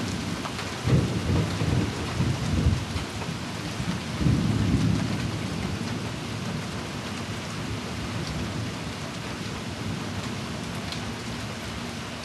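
Thunder rumbling over steady rain: one rolling rumble about a second in and another about four seconds in, dying away, with the rain going on alone after.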